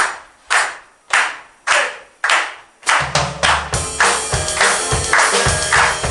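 Hand claps keeping a steady beat, just under two a second, after a count-in; about three seconds in a band joins with electronic keyboard and drums.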